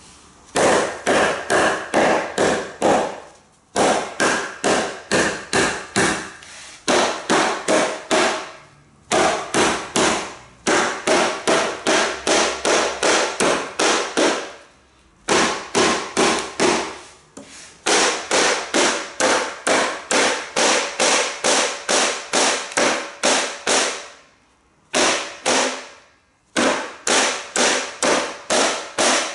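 Ontario Air Force survival knife being batoned through wood: rapid, sharp knocks of a baton striking the blade's spine, about three a second, in runs of several seconds with short pauses between them.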